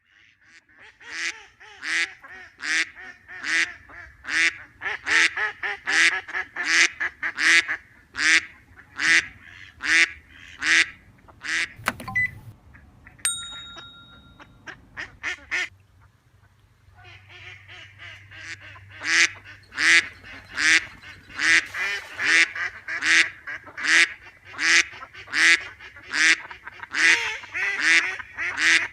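Ducks quacking in a rapid, steady series of short calls, about two a second. The quacking thins out midway, with a single knock and a brief high ringing tone, then picks up again.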